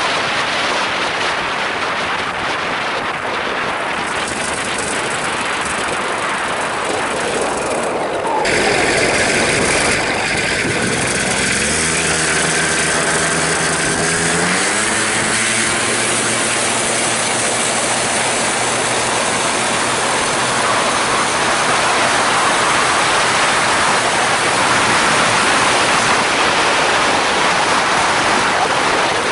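Polini Thor 250 single-cylinder two-stroke engine driving the pusher propeller of a homemade mono trike, with heavy wind rush on the microphone. About a third of the way in the sound changes abruptly; over the next few seconds the engine's pitch climbs as the throttle opens, then holds steady at high power.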